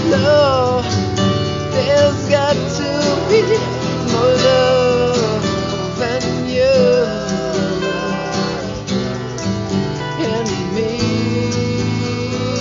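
Background music: a country-style song with acoustic guitar and a melody line that bends in pitch, without words here.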